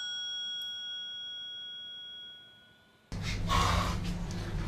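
A bell-like ringing tone dying away to near silence, then a sudden cut, a little past three seconds in, to a loud burst of noisy clatter over a low hum.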